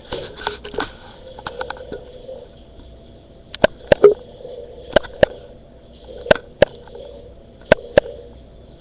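Laptop making sharp crackling clicks, often in pairs, over a faint steady hum and hiss, the weird noise it makes when it is touched.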